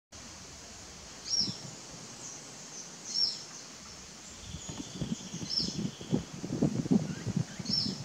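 Chivi vireo (juruviara) singing: four short, high, slurred phrases about two seconds apart. From about five seconds in, irregular low rustling thumps come in, louder than the song.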